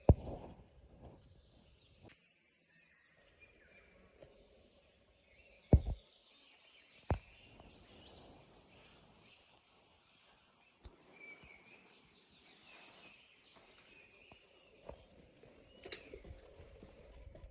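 Quiet ambience with faint, scattered bird chirps and a few sharp knocks, the loudest at the very start and about six seconds in.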